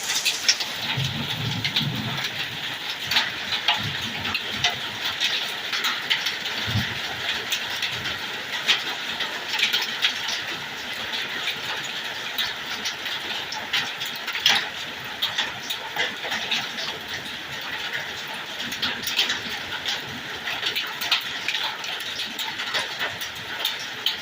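Pea-sized hail and rain falling steadily, a dense hiss full of small sharp ticks as hailstones strike hard surfaces. A few dull low thumps come near the start and about seven seconds in.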